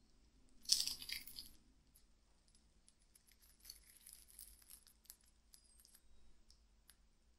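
Crisp breadcrumb crust of fried bread pocket pies crackling under the fingers: a sharp crunch about a second in as one is picked up, then faint small crackles as the pie is torn open.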